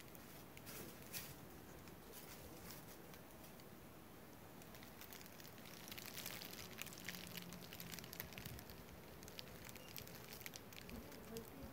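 Faint outdoor ambience: a low hiss with scattered small clicks and crackles.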